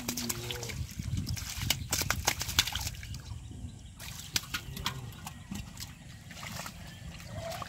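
Splashing and sloshing in shallow muddy water as a long, wriggling fish is grabbed and handled by hand, with many quick sharp splashes.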